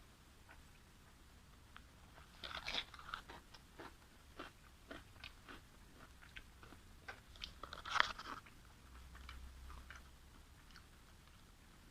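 Close-miked eating: crunchy bites and chewing, with the loudest crunches about two and a half seconds in and again around eight seconds.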